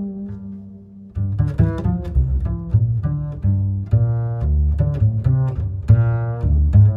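Background music led by low plucked and bowed strings, a walking melody of short notes; a held note fades out in the first second before the notes start again.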